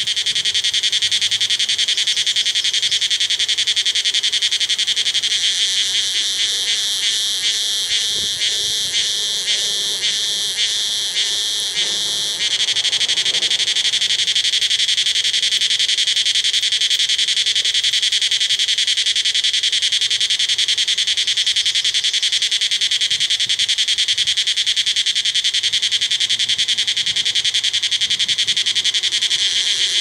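Cicada singing in the treetops: a loud, continuous high buzz. For several seconds in the first half it pulses rhythmically, then turns steady again.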